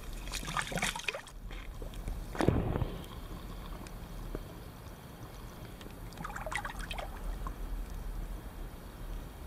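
Shallow river water splashing and sloshing as a hooked northern pike is released by hand, with a dull low thump about two and a half seconds in. After that the water is heard muffled from under the surface, with another short bout of splashing around six to seven seconds in.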